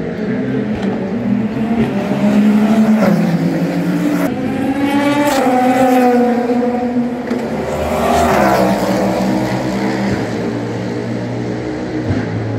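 Race car engines going past at speed one after another. The loudest pass, about five seconds in, drops in pitch as it goes by, and another car passes around eight seconds in.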